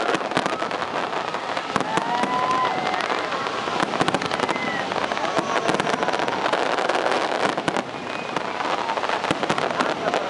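Large fireworks display: shells bursting overhead in a dense, continuous crackle, with many sharp bangs throughout.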